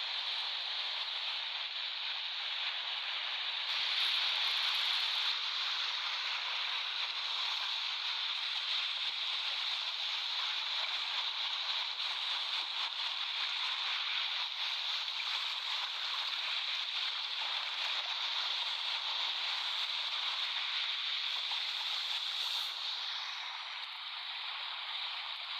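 Ocean waves breaking and washing onto a beach: a steady hiss of surf that swells a little about four seconds in.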